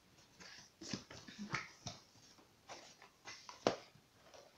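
Handling an advent calendar: irregular light clicks, taps and rustling, about half a dozen, with a sharper knock near the end.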